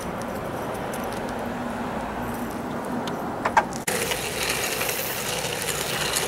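Skateboard and kick-scooter wheels rolling and rattling on an asphalt street, starting abruptly about four seconds in. Before that, steady background noise with a couple of sharp clicks.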